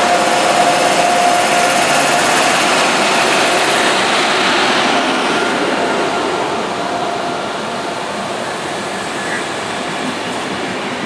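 Indian Railways WAP-7 electric locomotive and its passenger coaches passing at speed: a loud, continuous rushing noise with a steady whine over the first couple of seconds as the locomotive goes by. After about five seconds it eases to the coaches rolling past.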